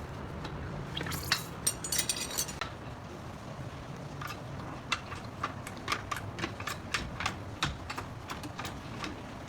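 Hand tools and metal parts clicking and clinking as work is done on a car's brake and steering parts, with a denser clattering stretch a little over a second in.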